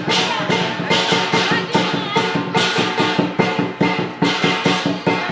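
Chinese dragon-dance percussion: drum, cymbals and gong playing a loud, steady beat of about two strokes a second.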